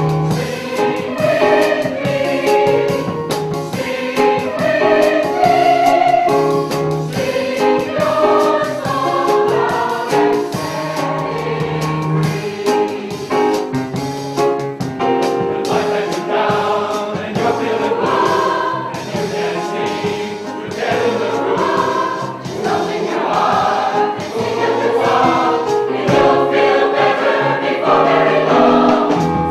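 Community chorus singing a song together, the full choir sustaining its parts throughout.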